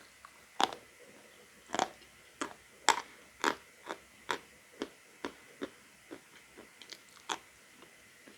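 A person biting and chewing lumps of natural chalk: sharp dry crunches, the loudest in the first few seconds, then softer chewing crunches about two a second that die away near the end.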